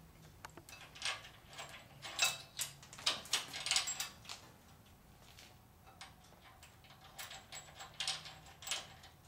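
Metal car parts and hand tools being handled: a scatter of short sharp clinks and light knocks, busiest about one to four seconds in and again near the end.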